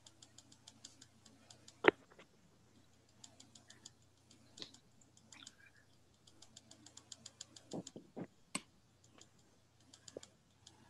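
Faint typing on a computer keyboard, quick key clicks in several bursts with pauses between them, with a sharper click about two seconds in and a few soft knocks near eight seconds.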